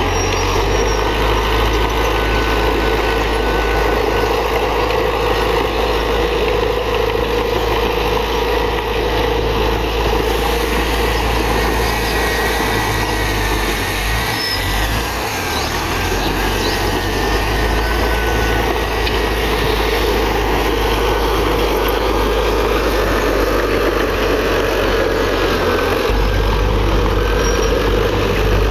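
Diesel engine of heavy earthmoving machinery, such as a crawler bulldozer, running steadily, with faint high squeaks now and then.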